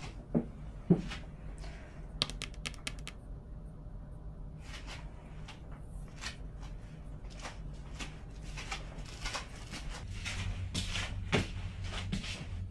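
Close household handling sounds: two soft thumps in the first second as a faux-fur cushion is patted down, then a quick run of light clicks about two seconds in. After that come repeated light brushing and rustling strokes of a hairbrush, with a low steady hum coming in near the end.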